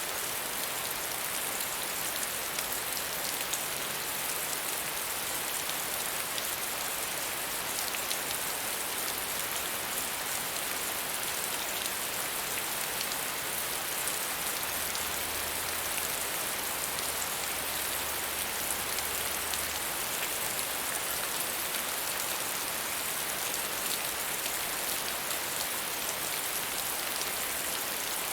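Steady medium rainfall: an even hiss of rain with many small drop ticks on a surface.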